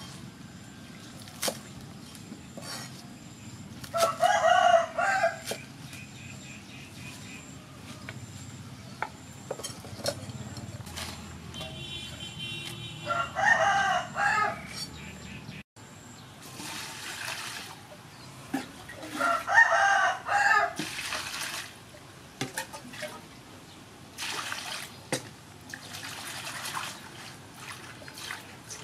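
A rooster crowing three times, each crow about a second and a half long; these are the loudest sounds. In the first seconds a cleaver knocks a few times on a wooden chopping board. In the second half water splashes as leafy greens are washed by hand in a metal bowl.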